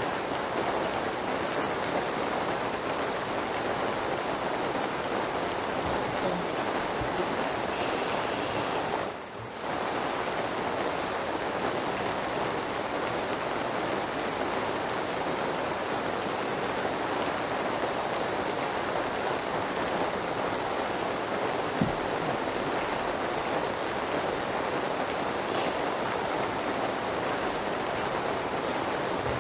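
Steady rain noise, an even rushing hiss that dips briefly about nine seconds in.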